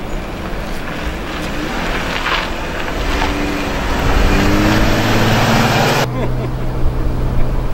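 Dodge Grand Caravan minivan driving slowly past close by: tyre and engine noise swell with a low steady hum as it nears, then the rushing noise cuts off abruptly about six seconds in.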